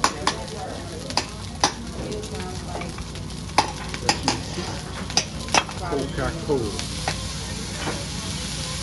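Fried rice and vegetables sizzling on a hibachi steel griddle, with a dozen or so sharp, irregular clacks of metal spatulas against the steel as the food is stirred. The sizzle grows louder near the end.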